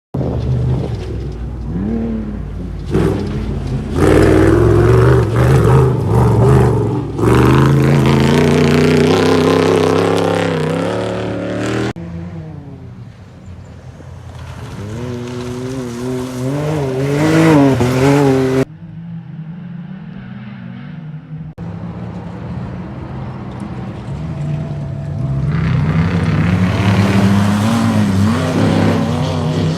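Off-road race car engines revving and running hard, the pitch rising and falling with the throttle. The sound changes abruptly several times, at about 4, 7, 12 and 19 seconds in, as separate clips are joined.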